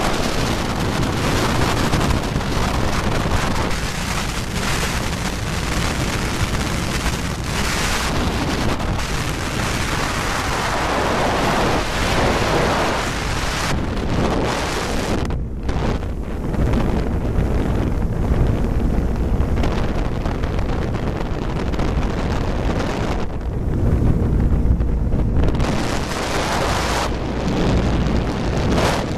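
Wind buffeting the microphone on a big-block Chevy–powered jet boat running at speed, with the engine and rushing water beneath as a steady low rumble that swells now and then.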